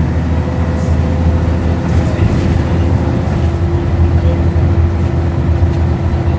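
Scania N113CRB bus's rear-mounted six-cylinder diesel and Voith automatic gearbox heard from inside the saloon while under way: a steady low drone with road noise. A steady whine joins about two seconds in.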